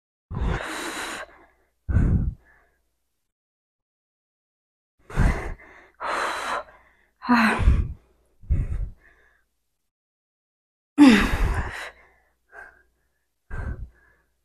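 A woman breathing hard from exertion: about nine forceful exhalations and gasps at irregular intervals. Two of them carry a short strained grunt of voice.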